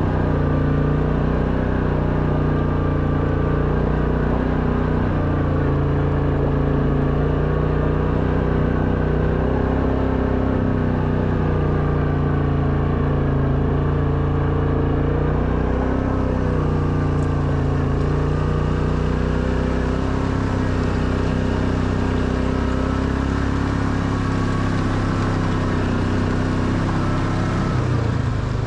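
Quad bike engine running steadily under load up a steep, rocky gravel climb, its pitch rising and falling a little. A hiss grows louder from about halfway through.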